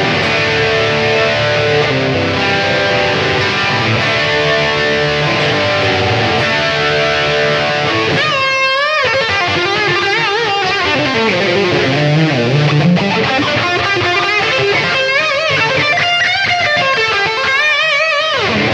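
Fender Road Worn 50s Telecaster electric guitar being played: sustained chords for about the first eight seconds, then a lead line with string bends and vibrato.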